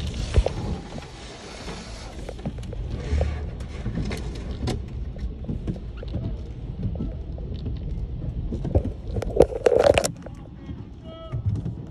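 Car-wash water spray hissing against the car's windshield and body, heard from inside the car, strongest for the first two seconds and again briefly around three seconds in, with scattered knocks and clicks. A louder clatter comes near the end.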